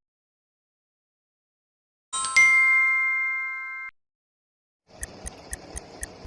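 A single bell-like ding that fades and then cuts off sharply, followed about a second later by a steady clock-like ticking, about four ticks a second.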